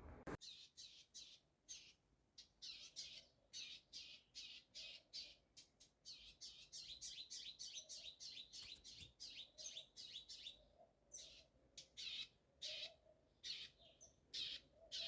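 Nestling songbirds near fledging age chirping softly in a fast, steady run of short high chirps, several a second, broken by brief pauses. There is a single click right at the start.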